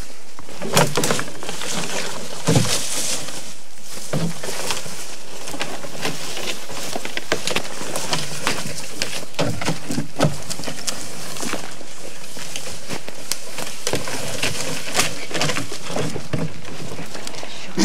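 Crackling and rustling of dry leaves, twigs and ferns under footsteps as people push through forest undergrowth, with a plastic game sled scraping over the forest floor as it is hauled along. Many sharp snaps ride over a steady rustle.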